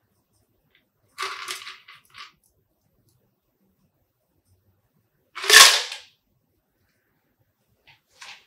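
Stainless steel cocktail shaker tin and strainers clinking during double-straining: a short rattle of clicks about a second in, then one loud, sharp metallic knock past the middle, and a couple of faint clicks near the end.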